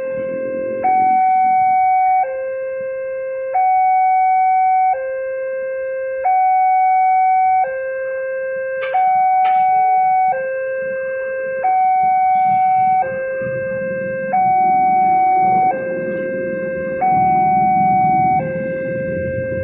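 Railway level-crossing electronic warning alarm sounding, alternating between a higher and a lower tone about every one and a half seconds. It signals an approaching train while the barriers are down.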